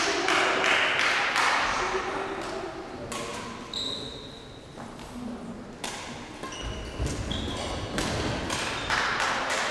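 Badminton play in an echoing sports hall: sharp racket hits on the shuttlecock and thudding footsteps on the court floor, with a few brief high shoe squeaks. Distant voices murmur from around the hall.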